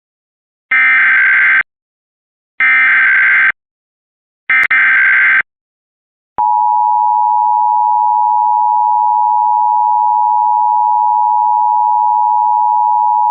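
Mock Emergency Alert System activation for a child abduction emergency (Amber alert): three SAME header data bursts of about a second each, then, about six seconds in, the steady two-tone attention signal.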